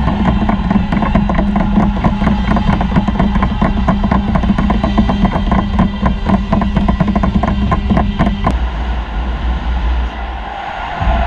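Goal celebration music over the ice rink's PA: a fast, loud drum beat over a held low tone, cutting off sharply about eight and a half seconds in, leaving arena murmur.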